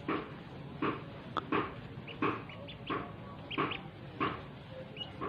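Ducklings peeping: short, separate calls about one or two a second.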